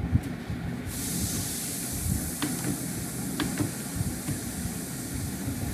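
A steady hiss comes in about a second in and cuts off suddenly near the end, with two faint computer-mouse clicks during it.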